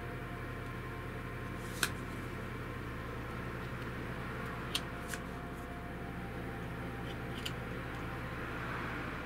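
Steady low drone with four faint, sharp clicks scattered through it, the first and loudest about two seconds in; the lowest part of the drone shifts about three seconds in.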